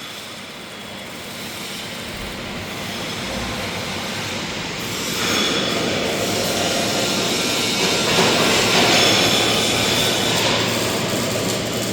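Steady hiss and crackle of welding work, growing louder about five seconds in.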